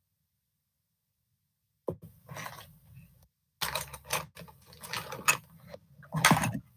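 Irregular rustling and scraping with scattered clicks, starting about two seconds in and coming in several bursts, over a low hum.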